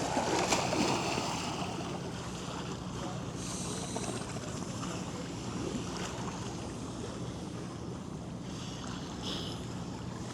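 Steady outdoor wind and water noise, with a low hum underneath.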